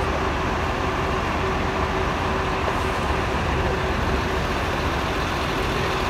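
Tour buses idling at the kerb: a steady low engine rumble with a constant hum, unchanging throughout.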